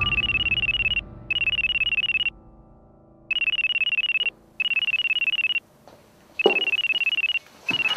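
A BlackBerry mobile phone ringing with a trilling electronic ringtone. The rings come in pairs, each about a second long, with a longer pause between pairs.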